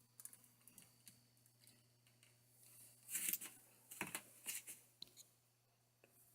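Faint small handling noises: scattered light clicks, then two short scraping rustles about three and four seconds in, over a faint steady low hum.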